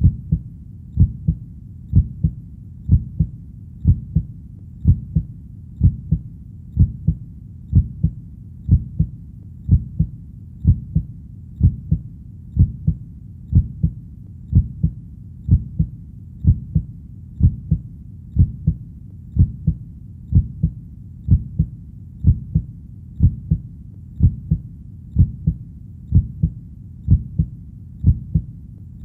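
Heartbeat: a steady, slow rhythm of low double thumps (lub-dub), about one beat a second.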